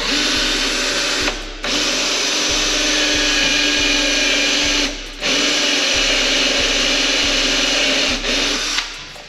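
Power drill running in three long bursts with brief pauses, drilling holes in a car's rear spoiler to mount a wicker bill; it stops near the end.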